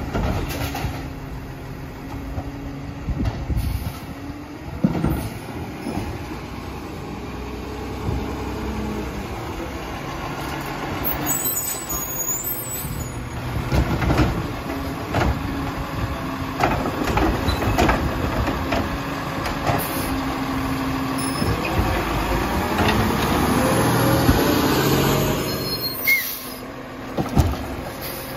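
Automated side-loading garbage truck (CCC chassis with a Labrie Expert arm) running at the curb: its diesel engine drones, the air brakes hiss, and the hydraulic arm grabs and lifts wheeled carts with sharp clanks and a rising hydraulic whine.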